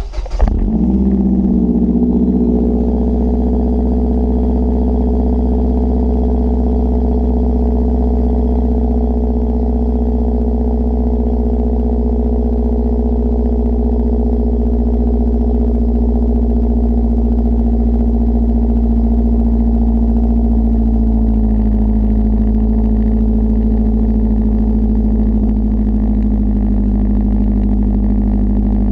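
2011 Mazdaspeed 3's turbocharged 2.3-litre four-cylinder through a catless Magnaflow exhaust, flaring briefly right at the start and then settling into a steady idle, its pitch dipping slightly near the end.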